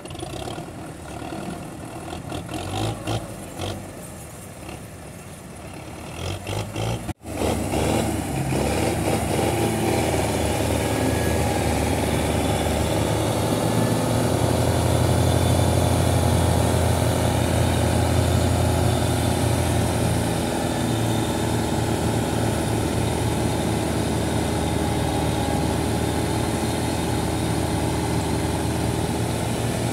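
Tractor diesel engine working hard under heavy load, pulling a fully loaded sugarcane trolley and puffing black smoke. For the first seven seconds it is quieter and uneven. After an abrupt break it runs loud and steady with a deep drone, loudest around the middle.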